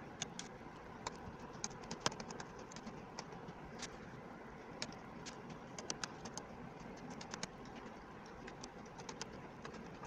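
A small screwdriver turning the screws on the underside of a plastic laptop case: irregular light clicks and ticks as the bit works the screws and the case is handled, over a steady low hiss.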